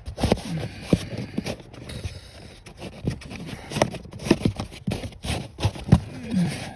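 Irregular knocks, clicks and scraping as a footwell cover panel is pushed and clipped back into place around the trim.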